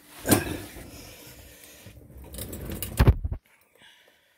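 Handling noise from a phone being moved around under a car: rubbing and scraping with a sharp knock about a third of a second in and a louder one about three seconds in, then it goes almost silent for the last second.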